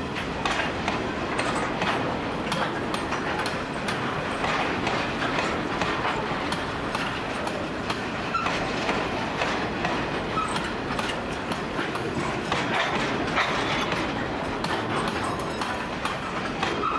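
Grain hopper wagons rolling past, their steel wheels clicking over rail joints amid a steady rattle and rumble. A couple of brief faint squeaks come near the middle.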